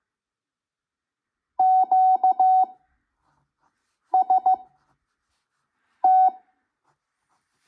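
Morse code (CW) practice tones from an ARRL code practice recording at 5 words per minute: a steady beep keyed into dots and dashes, forming three characters. Each character is sent quickly, with long gaps of about two seconds between characters.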